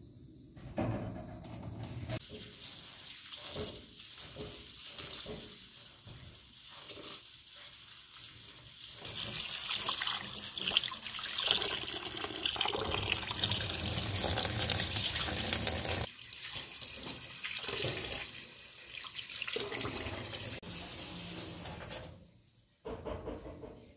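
Kitchen tap running into a bowl of rice as it is rinsed, water splashing in the bowl. The flow is strongest through the middle and stops about two seconds before the end.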